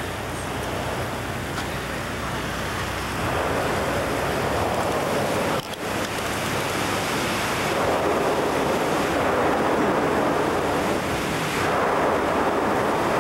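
Steady rush of water and wind on the microphone from a moving canal tour boat, with a low engine hum beneath. The rush grows louder about three seconds in and briefly cuts out near six seconds.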